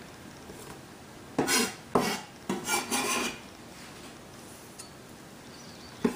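Kitchen knife scraping chopped herbs along the cutting board and off its blade into a glass bowl: a few short scrapes and knocks starting about a second and a half in and lasting about two seconds.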